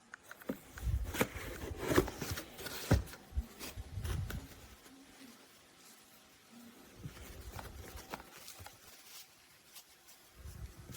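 Objects being handled at close range: scattered sharp clicks and knocks with rustling. They are busiest in the first five seconds or so and grow sparser and quieter after that.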